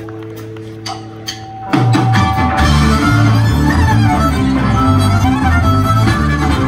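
Live country-rock band with fiddle: a sustained chord with a couple of light clicks, then about two seconds in the full band comes in loud, with a driving bass line, drums and fiddle.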